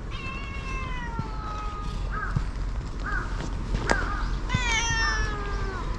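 Stray cat meowing: a long meow falling in pitch at the start, a few short chirping mews, and a second long falling meow near the end. A single sharp click comes about four seconds in.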